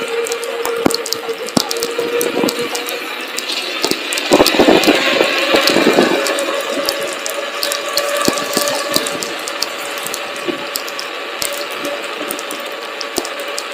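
Electric unicycle hub motor whining steadily while riding, rising slightly in pitch over the first few seconds, over a haze of tyre and wind noise. Scattered sharp clicks run throughout, with a louder, rougher stretch about four to six seconds in.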